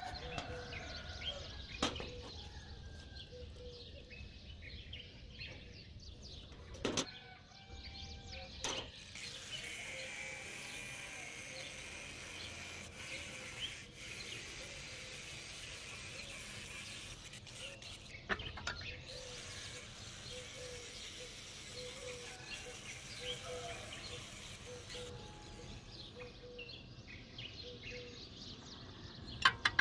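Faint outdoor ambience with small birds chirping now and then, and a few sharp knocks.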